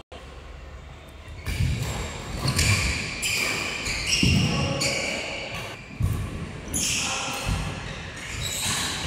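Badminton doubles rally on a wooden indoor court: players' feet thudding and shoes squeaking on the floor, with a sharp racket hit about six seconds in, echoing in a large hall.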